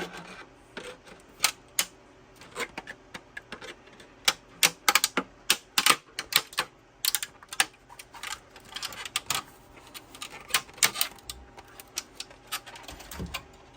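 Needle-nose pliers breaking 3D-printed plastic support material off a print: a run of sharp, irregular clicks and snaps, thickest around the middle.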